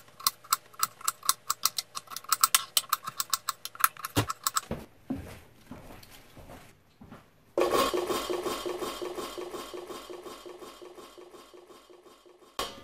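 Knife cutting Brussels sprouts in half on a wooden cutting board, quick knocks about five a second. A little past halfway, a stainless steel bowl is struck as the halved sprouts go into it: a sudden clang that rings and slowly fades, with one more knock near the end.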